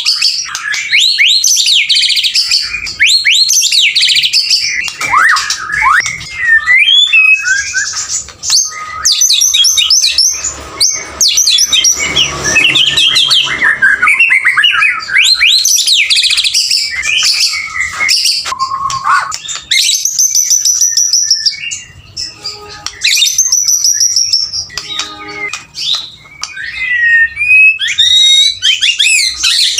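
Male white-rumped shama (murai batu) singing without let-up: a fast, varied run of whistles, trills and chattering phrases, easing off briefly twice late on.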